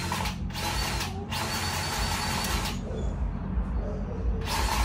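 Cordless battery-powered grease gun motor running in short bursts as it pumps grease into a semi truck's chassis grease fittings, with a pause of about two seconds in the latter half.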